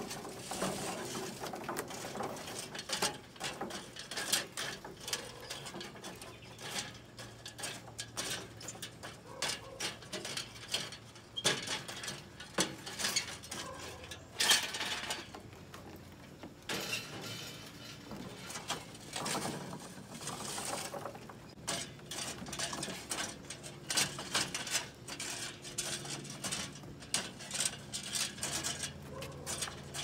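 Lit charcoal briquettes tumbling out of a metal chimney starter onto a grill's charcoal grate, clinking and rattling, with the metal chimney scraping and knocking against the grill. The clatter is irregular and comes in louder spells.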